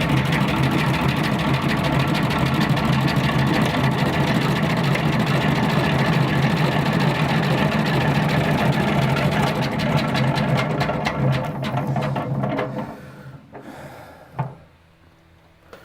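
Two-frame hand-cranked honey extractor being spun, its gears and drum rattling and whirring steadily. The spin slows and dies away about thirteen seconds in, followed by a single knock.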